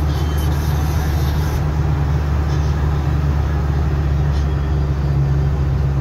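Steady low engine drone and tyre and road noise from a vehicle cruising at highway speed.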